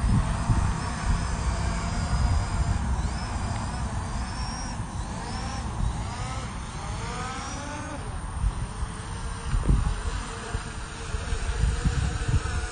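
Small quadcopter drone's electric motors and propellers whining, heard through the drone's own onboard microphone, with a heavy rumble of prop wash on the mic. In the middle the whine rises in pitch several times as the motors speed up.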